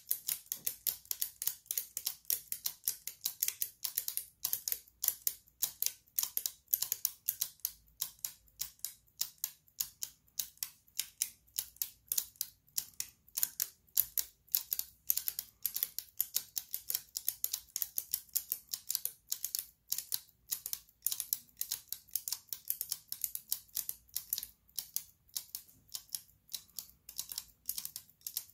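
Two 3D-printed plastic flying tourbillon mechanisms ticking together, their escapements giving a rapid, slightly uneven train of sharp clicks, several a second, as they run on their wound springs.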